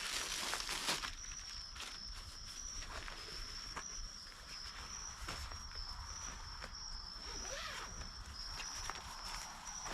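A steady high-pitched trill of night insects, such as crickets, runs throughout. Over it come footsteps and the rustling and scuffing of an outdoor rug being handled, loudest in the first second.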